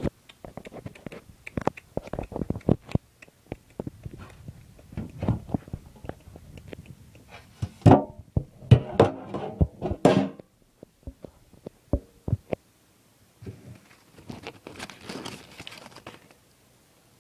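Irregular clicks, knocks and rustling as a pocket knife and its cardboard box are handled and opened, with a louder cluster of knocks about halfway through.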